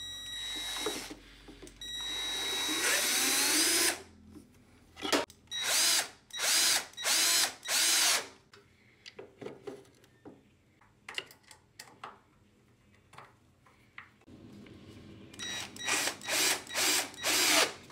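Cordless drill-driver driving wood screws up into a tabletop: a run of a couple of seconds, then a string of short trigger bursts as the screw seats. After a pause of several seconds, another string of short bursts near the end drives the next screw.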